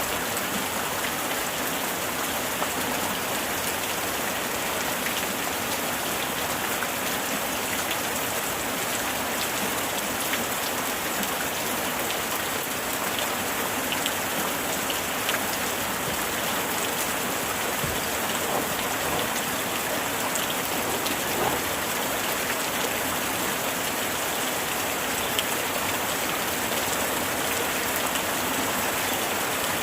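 Steady heavy rain falling, an even hiss with many small drop patters throughout.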